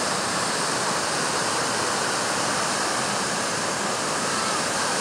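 The Little River, swollen by heavy rain, rushing over a rocky falls and rapids: a steady, unbroken whitewater rush.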